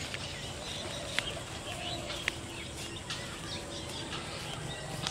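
Birds chirping and calling over a steady outdoor background hum, with a couple of sharp clicks about one and two seconds in.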